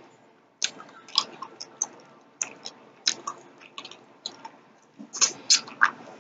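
Close-up chewing of sugar-free peach gummy rings: soft, sticky mouth smacks and clicks, irregular and several a second, with no crunch now that the sugar coating is off. The loudest smacks come near the end.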